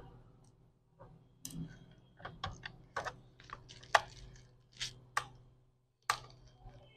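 Screwdriver clicking and tapping on the plastic underside of an HP G4 laptop as its case screws are undone: a string of sharp, irregular clicks, the loudest about four seconds in.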